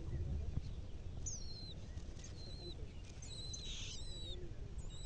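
Common nightingale calling: short, high, falling chirps repeated roughly once a second, over a steady low rumble of background noise.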